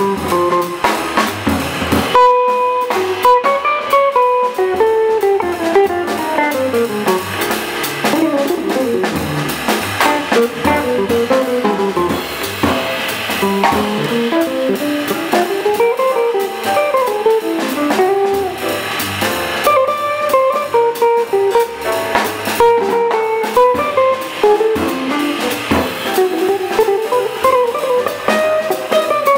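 Small jazz band: a hollow-body archtop electric guitar plays a fast single-note solo of rising and falling runs over upright bass and drum kit.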